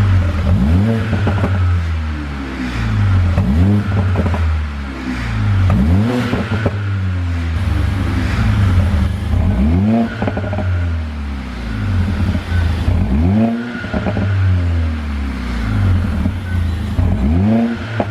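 Mercedes-AMG CLA45's turbocharged 2.0-litre four-cylinder being revved in about six quick blips, each rising and then falling back, with the exhaust crackling and popping as the revs drop. The popping is the sign of an overrun 'pop and crackle' tune.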